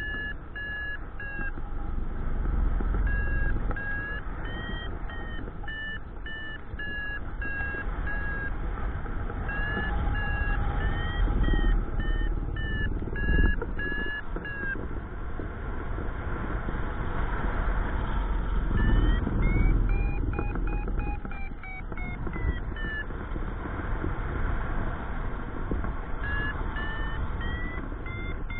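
Paragliding variometer beeping in short, quick pulses whose pitch rises and falls, the climb tone that signals rising air; the beeps go higher for a few seconds past the middle and stop for a few seconds later on. Steady wind rush on the microphone runs underneath.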